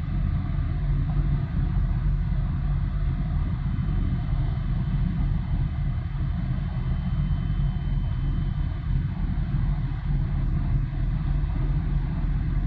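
Ship engines under way: a steady, low diesel rumble with a droning hum from a large container ship and the harbour tug escorting it.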